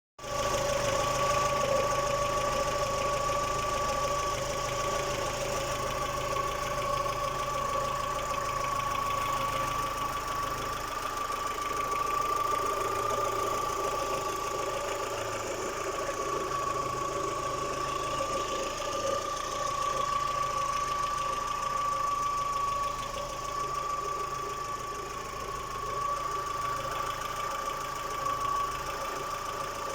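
Daewoo Nexia's F16D3 1.6-litre 16-valve four-cylinder petrol engine running steadily, likely at idle, with a steady high-pitched whine held over the engine noise.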